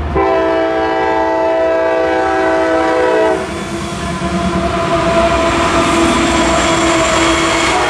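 Air horn of a CSX ES44AH freight locomotive blowing a long blast as it reaches the crossing; the horn cuts off abruptly about three and a half seconds in. The locomotives then pass close by, with engine noise and wheels rumbling and clacking over the rails.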